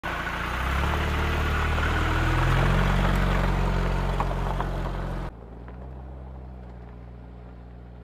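Car engine running, a low even sound that rises slightly in pitch over the first few seconds. About five seconds in it drops suddenly to a quieter, steady level.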